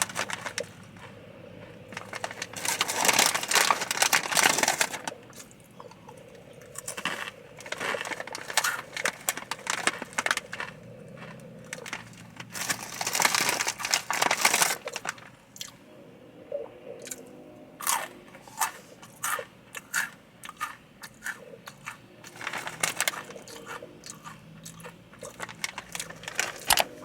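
Crunching and chewing of Takis rolled tortilla chips: runs of sharp crunches, with two longer, denser stretches of crunching about three and thirteen seconds in.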